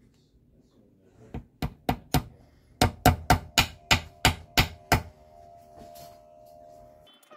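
About a dozen sharp knocks in quick succession, roughly three a second, followed by a faint steady ringing tone that stops suddenly near the end.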